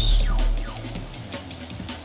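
Background music. A deep boom fades out over the first second, then the music carries on more quietly with repeated falling sweeps.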